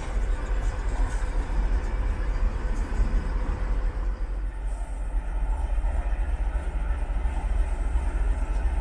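Trains passing on the line: an electric multiple unit rolling by on a far track, then, after a change about four seconds in, a diesel locomotive moving past close by. The sound is a steady, heavy rumble with no horn or sharp knocks.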